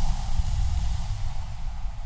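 Sea waves on a shore: the hiss of surf fading away just after a wave has broken, over a steady low rumble.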